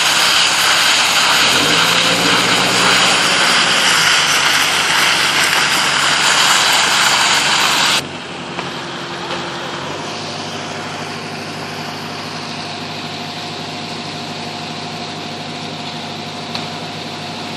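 Construction machinery engines running at a concrete road site. For the first half a loud, steady rushing noise covers them, then it cuts off abruptly to a quieter, steady engine hum.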